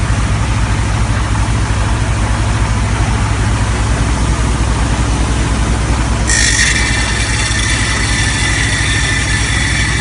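Engine of an HF120W water well drilling rig running steadily. About six seconds in, a high whine of several steady tones joins in and holds.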